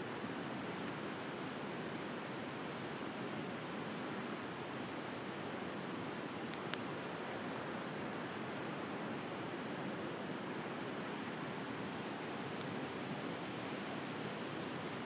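A steady wash of sea surf with a wood campfire crackling over it: scattered sharp pops, the loudest a pair about two-thirds of the way through.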